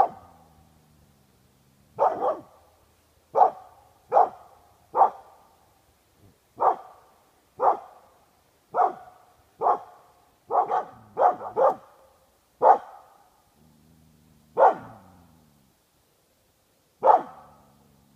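A Lapinporokoira (Lapponian herder) barking, one sharp bark about every second, now and then two in quick succession, the barks spacing out near the end. It is alert barking at a figure draped in a white sheet.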